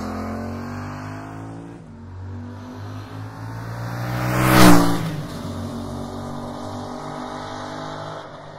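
The Yamaha Tracer 700 GT's two-cylinder 700cc engine, heard through its Akrapovic muffler while being ridden. The engine first drops in revs, then accelerates to a loud peak with a rush of noise about four and a half seconds in, then runs steadier at lower revs.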